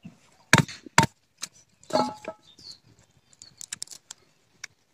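A curved blade chops twice into the hard husk of a germinated palmyra palm seed, about half a second apart, with a third knock at about two seconds. Light clicks and crackles follow as pieces of fibrous husk and shell are pulled off the kernel by hand.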